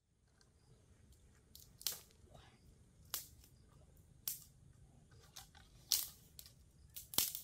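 Sharp crackling crunches of dry leaves and twigs, five or so louder ones roughly a second apart with smaller crackles between, over a faint steady hiss.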